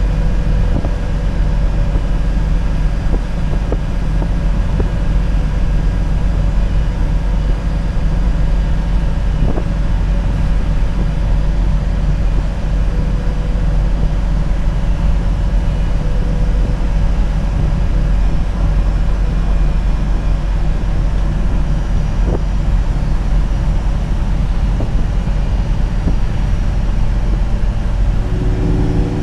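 Inside a MAN NL243 CNG low-floor city bus under way: a steady low drone from its natural-gas engine, drivetrain and tyres, with a light rattle of fittings now and then. Near the end a higher humming engine note comes in.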